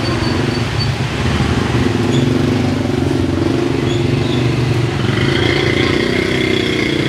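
Motorbike engine running close by in busy street traffic, steady throughout. A steady high-pitched tone joins it for the last couple of seconds.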